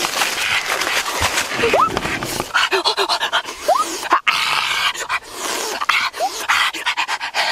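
Exaggerated eating sounds: biting and tearing into a whole roasted turkey, with wet smacking and chewing over noisy breaths. The eater gives a few short rising squeaky vocal sounds.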